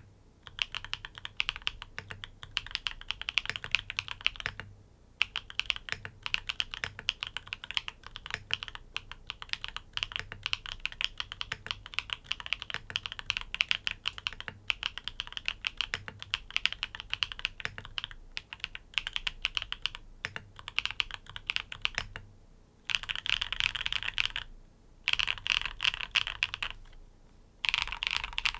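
Typing on a NEO80 custom mechanical keyboard with tactile switches in a sandwich mount: a steady run of key strokes with short pauses about 5 and 22 seconds in, then a few separate bursts of fast strokes near the end.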